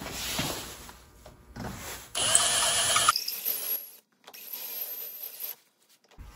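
Cordless drill with a step bit running, boring a tapered hole into a cow-horn bow nock held in a vise. About two seconds in, the motor whine is loudest for about a second, then the cutting goes on more quietly.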